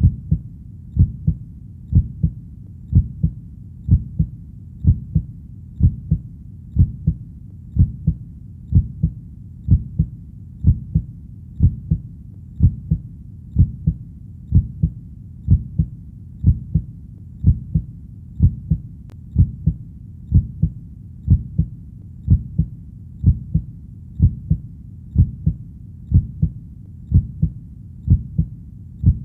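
Heartbeat: a steady lub-dub double beat repeating about once a second, low-pitched, over a faint steady low rumble.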